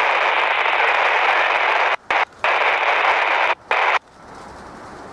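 Railroad radio hissing with static over an open channel with no voice on it. It cuts out briefly two or three times and stops about four seconds in.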